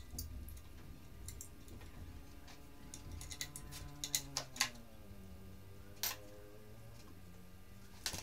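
Light clicks and small metal taps of hand tools and parts being handled while refitting a motorcycle's exhaust. There is a cluster of clicks about four seconds in, a single sharper tap about six seconds in, and more clicks near the end.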